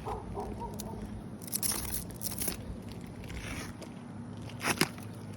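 Crinkling and tearing of a new shingle package's wrapper as it is handled, in a few bursts, with a sharp snap near the end.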